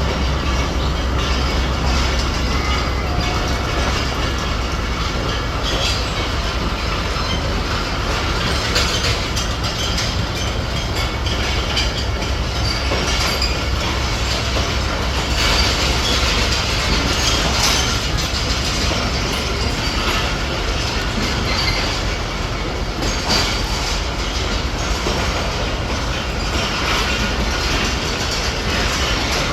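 Subuk Raftaar railcar running on the line, with a steady rumble and scattered clicks of its wheels over the rail joints.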